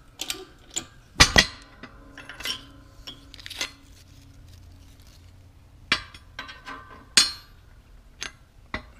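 Steel clinking and knocking as a punch and a pressed-out AK barrel component are handled against a steel press fixture, with a loud double knock about a second in and two more sharp knocks near six and seven seconds, some ringing briefly.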